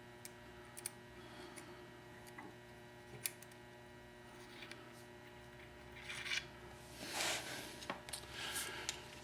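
Small clicks, taps and scraping of metal parts being handled as a piece is popped off a chain drive vise to expose its inside, with a louder spell of scraping about two thirds of the way in, over a steady low hum.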